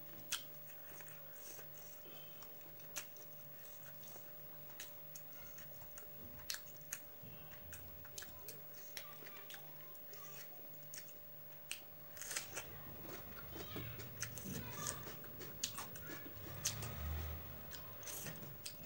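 Close-up mouth sounds of a person chewing food: soft wet smacks and clicks, sparse at first and coming thicker and louder in the second half. A faint steady hum runs underneath.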